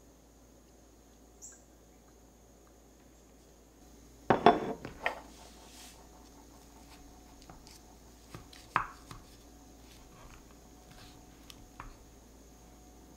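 Dishware handled on a kitchen counter: a clatter of several sharp knocks about four seconds in, then a single knock near nine seconds. After that come light taps and scrapes of a wooden server in a glass baking dish of blueberry cobbler.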